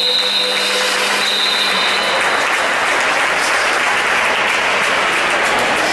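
Spectators in the stands applauding, a steady patter of clapping.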